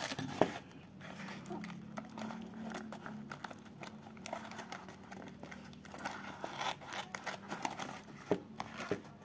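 Brown paper packaging rustling and crinkling as it is handled and unwrapped, with irregular small crackles and clicks.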